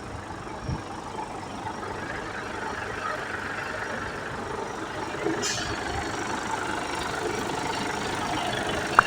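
Truck diesel engine running steadily at idle, with a short burst of high noise about five seconds in.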